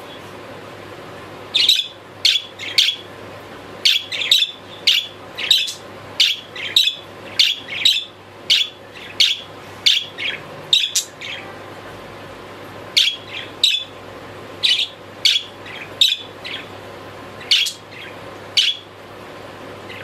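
Pet budgerigar chirping: a long series of short, sharp chirps, about two a second, with a brief pause a little past halfway.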